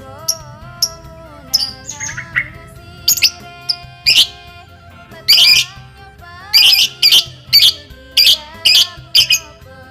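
Young lovebird giving short, sharp, high-pitched chirps ('crit crit') in quick bursts of one to three calls, about a dozen in all, over quieter background music.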